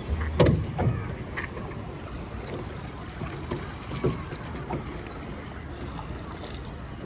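Oars of a hand-rowed rowboat working in the water, with a few irregular knocks of the oars in their oarlocks, the loudest about half a second in.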